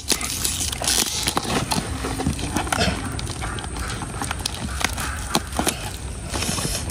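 Packing tape being picked at and peeled off a plastic-wrapped gift box by hand, with irregular crinkling and small sharp clicks of tape and plastic.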